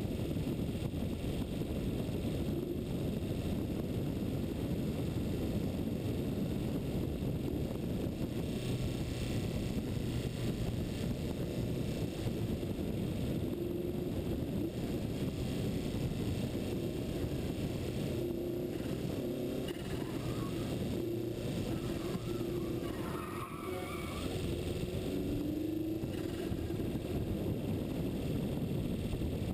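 Steady wind and road rush from a vehicle travelling fast downhill, with a faint hum that comes and goes.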